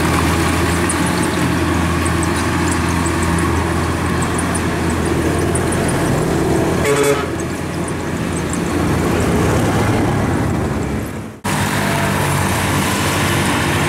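Kubota combine harvester's diesel engine running steadily as the machine crawls on its tracks through deep mud in a rice field, with a short toot about halfway through. The sound drops out for an instant near the end, then the engine carries on.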